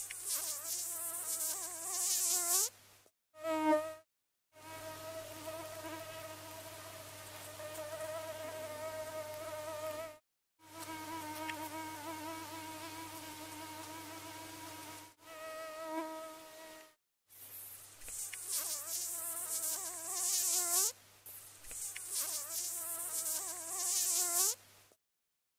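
Mosquito buzzing sound effect: a pitched whine that holds steady for long stretches and in other stretches wavers and swoops up and down as if flying close past. It is chopped by several sudden short silences and stops shortly before the end.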